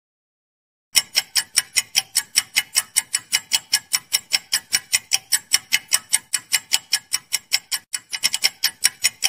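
Clock ticking sound effect for a quiz countdown timer: sharp, even ticks several times a second, starting about a second in after silence, with a brief hitch near the end.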